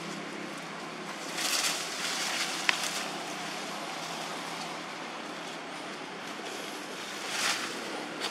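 Leafy branches rustling twice, about a second and a half in and again near the end, with a single sharp click like a snapping twig in between, over a steady outdoor hiss.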